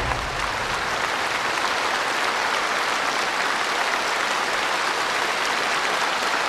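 Large concert-hall audience applauding steadily, as the music dies away in the first second.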